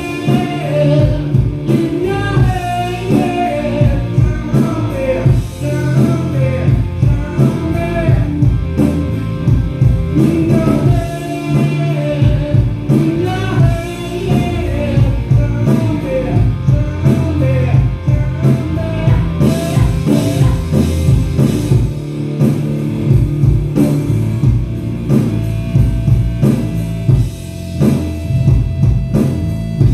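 Rock band playing live: a man singing into a microphone over electric guitar, bass guitar and a drum kit. The vocal line is clearest in the first half.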